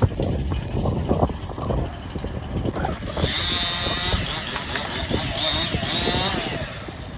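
Two-stroke chainsaw running and cutting, its pitch wavering, over a low rumble of wind and engine noise. It fades near the end.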